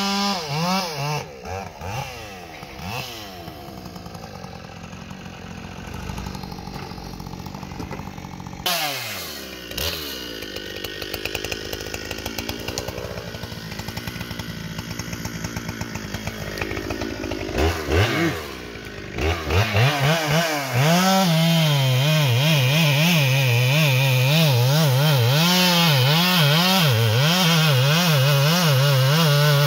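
Ported Husqvarna 395XP chainsaw with a 36-inch bar, running at low speed at first, then revved up about 18 seconds in. From about 20 seconds on it is held at full throttle, cutting into the base of a large tree trunk, its pitch wavering under load.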